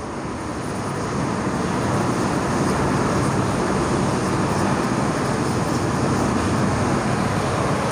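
A steady rushing, rumbling noise that grows slightly louder over the first two seconds and then holds.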